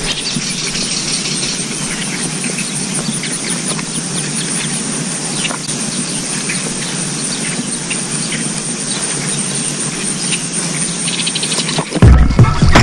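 Steady evening chorus of insects and birds with many faint ticks. Near the end, loud music cuts in.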